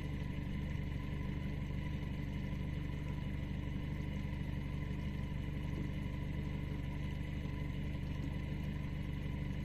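Boat motor running steadily: an even low hum with no change in level.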